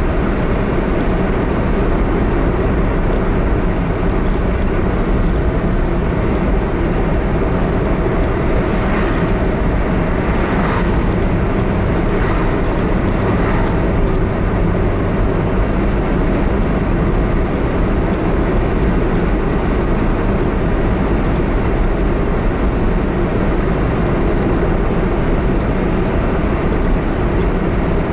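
A car driving at steady speed, heard from inside the vehicle: a continuous low rumble of road and engine noise, with a few faint brief swishes about ten seconds in.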